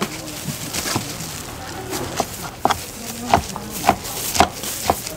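A knife chopping on a cutting board, the way gimbap rolls are sliced: a few scattered strokes at first, then a steady run about twice a second from about two seconds in. Market voices chatter in the background.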